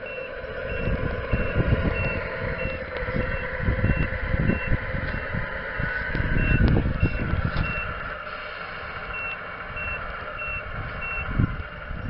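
RC model Foden S21 lorry's sound unit sounding a reversing beeper, about two beeps a second, which stops near the end. Under the beeps runs its simulated diesel engine note, which rises about halfway through. Low gusts of wind buffet the microphone and are the loudest part.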